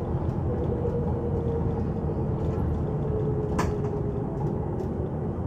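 Volvo B9TL double-decker bus on the move, heard from the upper deck: a steady engine and road rumble with a faint whine that slowly drops in pitch, and one short rattle about three and a half seconds in.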